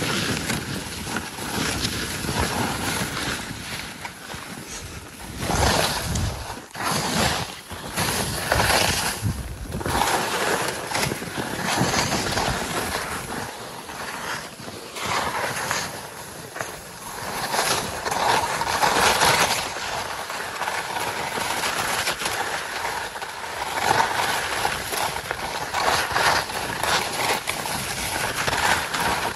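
Salomon skis scraping and hissing over packed, chopped-up snow, the noise swelling and fading with each turn.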